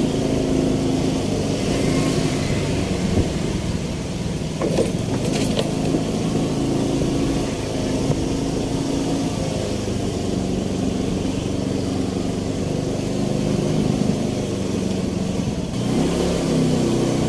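Small motorbike engine running steadily at low speed, with slight rises and falls in pitch as the throttle changes, and a few brief clicks about five seconds in.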